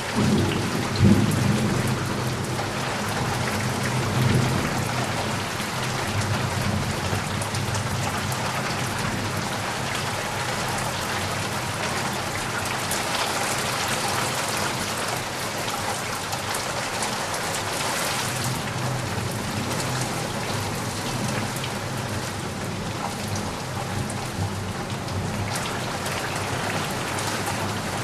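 Steady rain falling, with low rolls of thunder during the first few seconds and a sharper peak about a second in.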